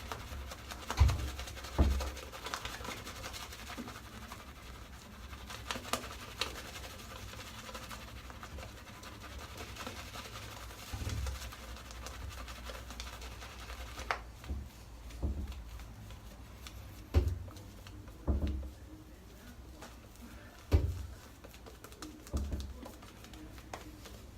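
Gem Clog Pruf single-edge safety razor scraping through lathered stubble in short strokes, with several dull thumps.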